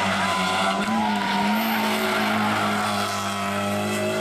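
Toyota Yaris rally car engine running hard at fairly steady revs, with tyres squealing through a tarmac corner, most clearly in the first couple of seconds.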